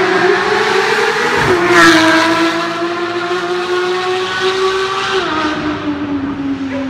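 Porsche 911 GT3 (991) flat-six on a Fi aftermarket exhaust, passing close by at high revs. Its pitch falls sharply as it goes past about a second and a half in, at its loudest. It then pulls away under hard acceleration with the pitch rising, shifting up about five seconds in.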